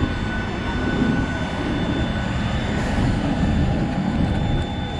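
Steady aircraft engine noise: a low rumble under a few thin, steady high-pitched whines.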